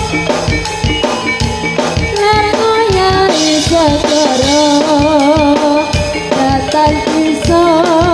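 Live jaranan band music through a PA: a woman sings a langgam melody with vibrato over a steady drum beat.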